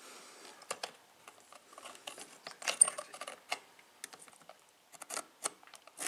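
Irregular light clicks and taps from handling a pen-style non-contact voltage tester against the plastic and metal plate of an old timer wall switch.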